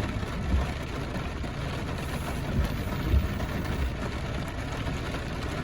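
Steady rain falling, an even rushing hiss, with a few irregular low thumps.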